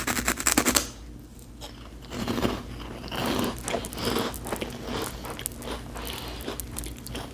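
Close-up eating of a crunchy seasoned wafer snack: a loud crackling bite-crunch in the first second, then repeated chewing crunches.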